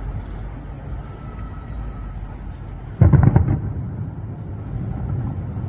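Distant fireworks shells bursting: a sudden cluster of deep booms about three seconds in, the loudest sound here, over a continuous low rumble.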